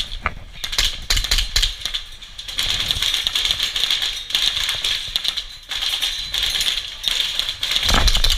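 Airsoft gunfire: dense, irregular clicking and rattling in spells of a few seconds, with many sharp ticks throughout.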